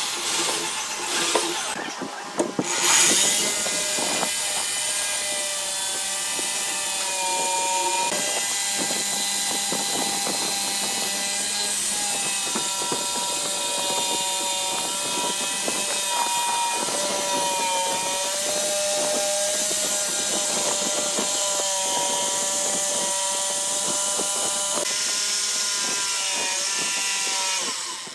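A corded electric drill bores into a hardwood tabletop for about two seconds. After a short break a DongCheng DMQ85 electric jigsaw cuts through the wood along curved lines, running steadily, its motor whine sagging and recovering in pitch as the blade takes load. The sawing stops abruptly at the end.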